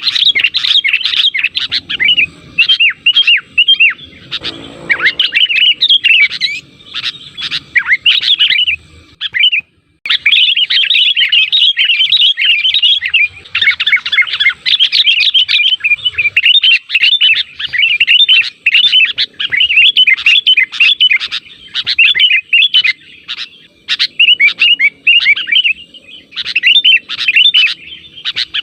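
Sooty-headed bulbuls calling in a dense, rapid run of chattering, bubbly notes, used as a lure call to draw other bulbuls to answer. The notes break off briefly just before ten seconds in, then go on.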